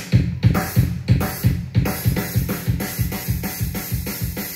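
Music with a heavy bass-drum beat, about three hits a second, played through a Bose Solo 15 TV soundbar as a sound test.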